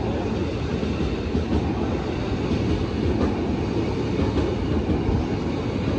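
E233 series 5000 electric train running past as it pulls out of the station: a steady rumble of wheels on rail and running gear, with a few faint clacks.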